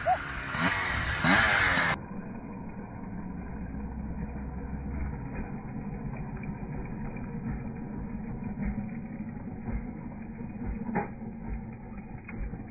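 Honda CR125 two-stroke dirt bike engine revving with a rising pitch, then running steadily at a low idle, sounding duller from about two seconds in.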